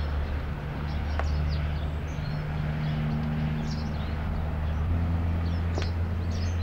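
A steady low mechanical hum, shifting slightly in pitch about five seconds in, with small birds chirping now and then and a couple of faint knocks.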